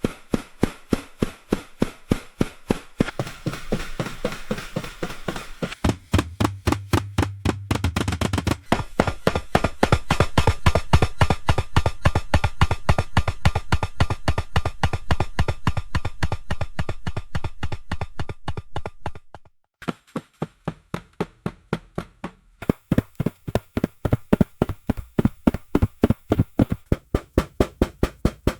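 Footsteps of a person running on concrete: quick, even footfalls, each a sharp slap on the hard surface, growing fainter for a few seconds about two-thirds through before coming back at full strength.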